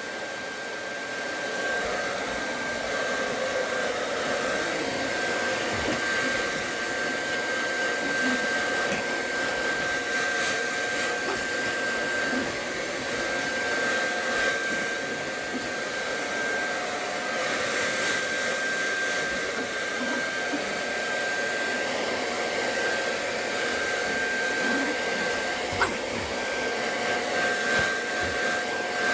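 Hand-held hair dryer running steadily: rushing air with a constant high whine. There is one sharp click a few seconds before the end.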